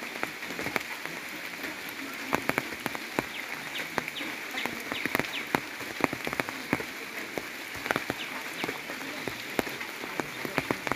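Steady rain falling, with many irregular sharp drops ticking close by.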